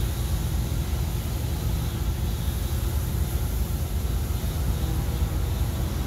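Loud, steady rushing noise of a pressure washer spraying, with a rumble in the lows and no siren sounding.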